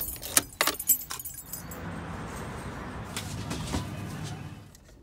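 A quick run of sharp clicks and rattles in the first second and a half, like small hard objects being handled, followed by a steady rushing noise that fades out near the end.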